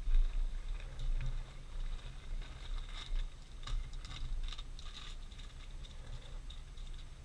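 Low, uneven wind rumble on the microphone, with scattered light clicks and rustles of small things being handled.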